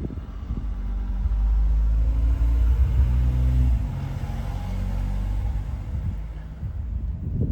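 A motor vehicle's engine running, its low pitched hum growing louder over the first few seconds, then dropping in pitch and level about four seconds in.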